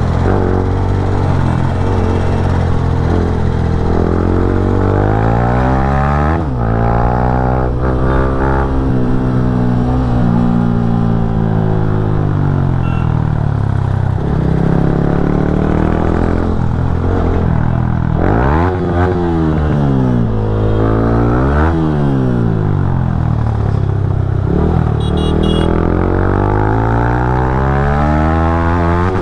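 Yamaha MT-15's single-cylinder engine heard while riding, its pitch rising and falling repeatedly as it accelerates and slows, with several quick gear changes.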